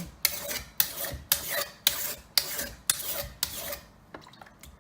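Kitchen knife blade stroked back and forth on the fine, light-gray finishing side of a two-sided sharpening stone: about seven rasping scrapes, roughly two a second, stopping about three and a half seconds in.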